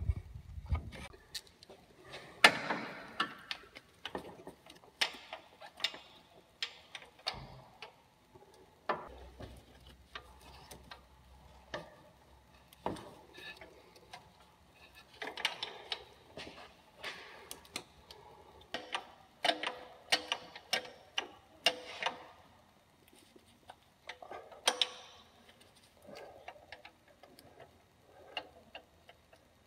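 Snap-on 3/8-drive flex-head ratchet clicking in short bursts as it loosens a starter mounting bolt, with tool clinks and handling knocks between the bursts.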